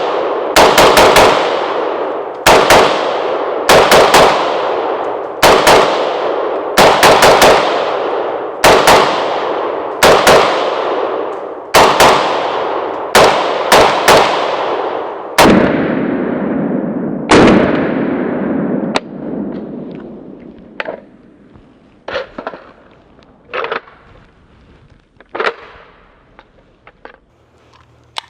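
Palmetto State Armory GF3 AK-47 rifle firing 7.62x39 rounds in quick singles and pairs, about one shot a second, each with a long echoing tail. The shooting stops about two-thirds of the way through, after two last spaced shots, and fainter metallic clicks and knocks follow.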